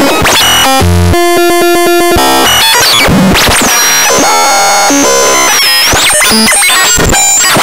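A loud, dense jumble of electronic synthesizer sound effects: tones that shift quickly, a fast even pulsing about a second in, and gliding whistle-like tones later on. It cuts off abruptly at the end.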